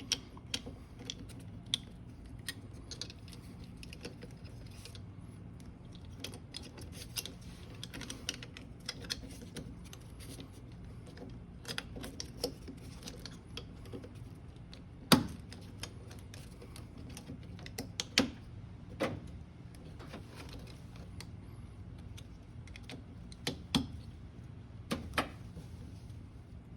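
Scattered light clicks and knocks of a car door speaker being handled and fitted back into the door, with a sharper knock about halfway through.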